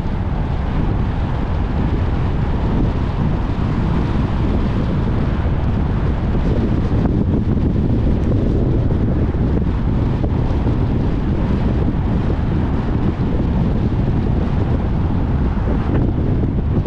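Steady wind buffeting the microphone of a camera mounted outside a moving car, over the low rumble of the car driving on the road.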